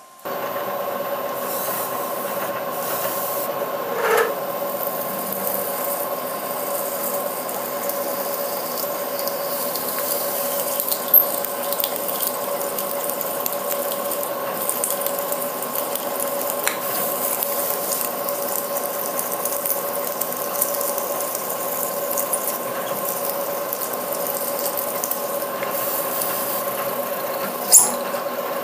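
Bridgeport milling machine spindle running with a steady whine while a drill cuts into a 7050 aluminium block, with a grainy scraping of chips. A few sharp clicks stand out, about four seconds in, around eleven seconds, and near the end.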